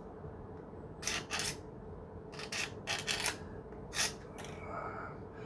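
Craft knife scraping dried glue off the broken edges of a plastic model kit, in a series of short, hissy strokes that come in small clusters.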